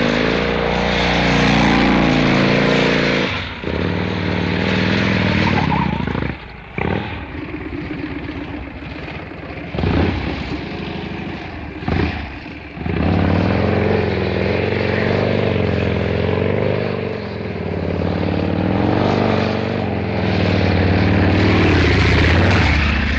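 Motorcycle engine running and revving, its pitch rising and falling. Through the middle it drops to lower revs, broken by two short sharp throttle blips, then it revs up again and holds higher revs to the end.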